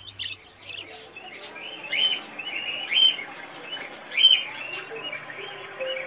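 Zebra finches calling: short, nasal chirps, four of them spaced about a second apart over faint background noise.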